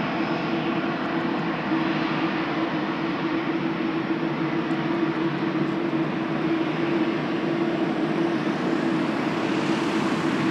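Jet airliner taking off, its engines at takeoff thrust: a steady, loud noise with a low hum running through it.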